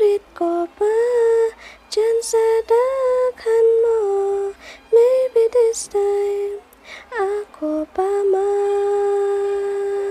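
A woman singing a slow melody in short phrases, ending on a long held note about eight seconds in.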